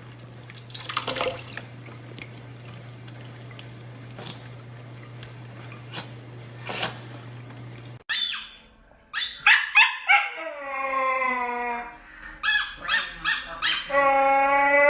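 A dog howling and whining in several drawn-out calls, one sliding down in pitch and the last one long and held. Before the calls, about eight seconds of a low steady hum.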